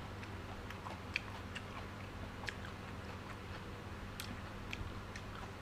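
A person chewing a mouthful of food with the mouth closed: a scatter of faint, irregular wet clicks over a low steady hum.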